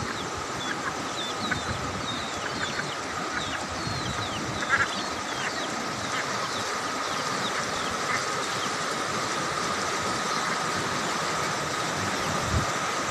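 Steady rushing of a flooding river, with short high bird chirps scattered through the first half.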